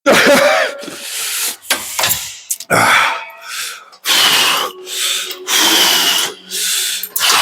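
A lifter breathing hard and forcefully exhaling through a set of presses: loud, rough breaths coming about every second, a few of them strained and voiced.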